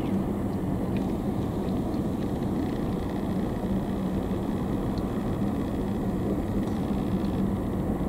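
Steady low outdoor rumble with a faint steady hum underneath and a few faint ticks; no bird calls stand out.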